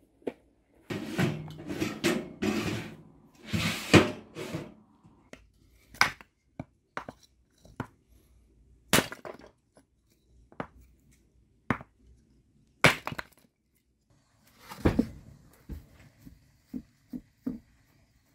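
A small hatchet splitting kindling from a block of wood: a series of sharp, separate knocks and cracks as the blade strikes and the wood splits. A busier spell of knocking and rustling comes in the first few seconds.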